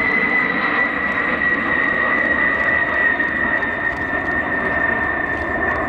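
Eight turbofan jet engines of a Boeing B-52 Stratofortress flying past and away: a loud, steady jet roar with a high whine that slowly falls in pitch as the bomber recedes.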